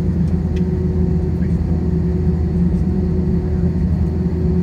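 Airbus A320-200 engines running at a steady low drone with a constant hum above it, heard from inside the passenger cabin; the pitch and level hold even, with no spool-up.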